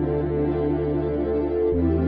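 Ambient background music: a quick repeating pattern of short notes over a held low bass note, which shifts to a new note near the end.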